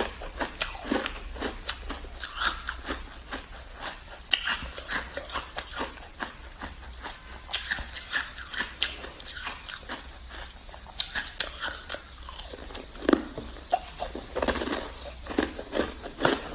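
Hard shaved ice crunched and chewed close to the microphone: a dense run of irregular, crisp crackles, with a few louder cracks in the last few seconds.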